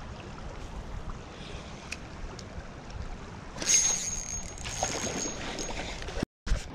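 Steady rush of creek water with wind on the microphone. A little past the middle it swells briefly, with a thin high whine lasting about a second and a half, and near the end the sound cuts out for a moment.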